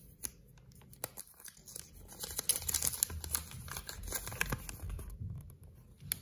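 A thin folded paper instruction leaflet from a Kinder Surprise toy capsule is handled and unfolded, crinkling and rustling. The crackle is busiest and loudest from about two seconds in to about five seconds, with a single sharp crackle near the end.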